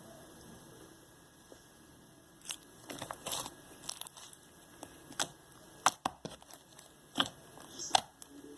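Slime being squished and stretched by hand, giving irregular sharp clicks and pops that start about two and a half seconds in.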